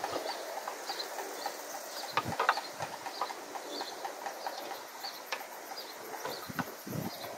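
Small birds chirping on and off, with scattered light clicks and a few short low rumbles of wind on the microphone.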